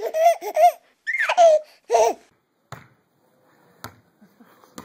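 A young child giggling in several short bursts, then three short thumps about a second apart as a ball is bounced and played with.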